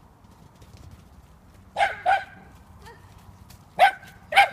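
Dog barking: short sharp barks, a pair about two seconds in and two more near the end.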